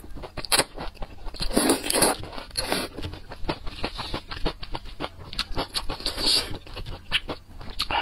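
Close-miked eating of thick noodles in spicy sauce: a few wet slurps early on, then chewing with many quick wet smacks and clicks of the mouth.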